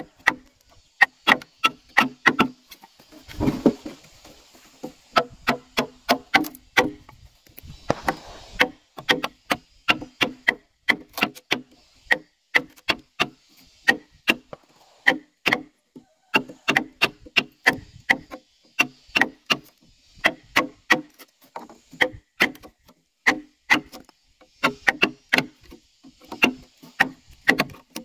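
A blade or tool strikes a wooden pole over and over, about three blows a second in runs with short pauses, each a sharp knock on the wood. About three and a half seconds in, and again about eight seconds in, there is a brief rougher, rasping noise.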